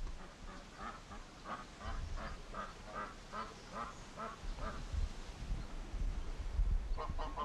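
White domestic ducks quacking, a quick run of short calls about three a second for a few seconds, then another run near the end.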